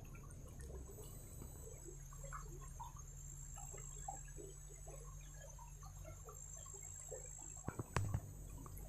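Small stream trickling and gurgling faintly, with a steady high-pitched whine over it. A couple of sharp knocks come near the end.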